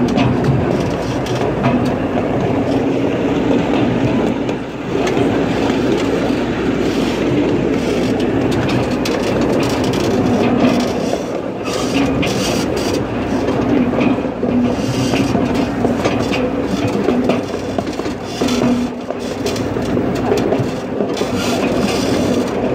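Miniature railroad train running steadily along its track, heard from a riding passenger car: a continuous rolling rumble with scattered clicks from the wheels and cars.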